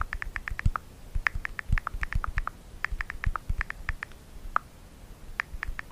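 Frantic typing on a keyboard: rapid, uneven key clicks with dull thumps, growing sparser over the last two seconds.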